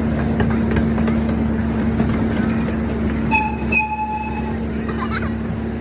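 Miniature ride-on train running with a steady low drone. Its horn toots twice about three seconds in, the second toot held for about a second.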